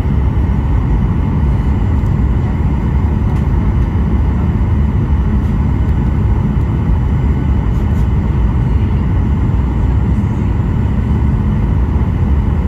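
Steady airliner cabin noise: a loud, even low rumble of engines and airflow with a faint steady whine above it.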